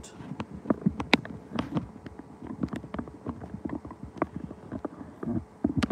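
Irregular clicks, taps and light knocks of handling noise as the recording camera is adjusted by hand.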